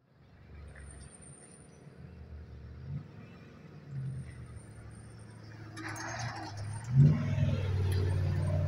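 Off-road race truck's V8 engine running as the truck approaches and passes close, growing louder as it nears, with a sharp loud burst about seven seconds in.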